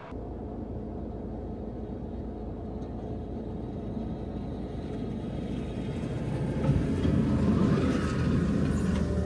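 Fiat Ducato van driving, a steady low engine and road rumble that grows louder toward the end.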